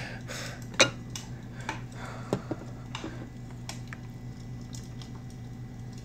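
Sparse light clicks and taps, the sharpest about a second in, over a steady low hum.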